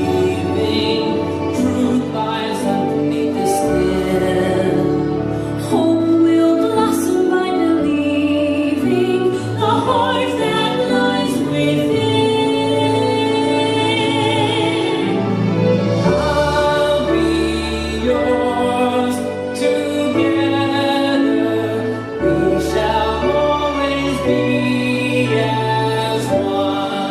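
A song playing: a sung melody with vibrato over a steady instrumental accompaniment with a bass line.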